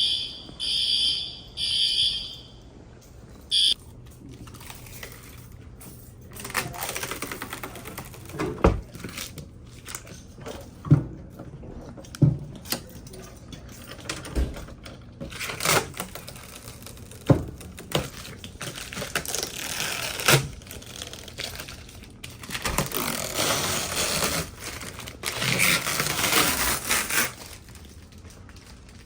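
A fire alarm horn sounding in short high-pitched pulses about once a second, stopping about two and a half seconds in. Then scattered knocks, clicks and rustling as device box covers are handled and fitted.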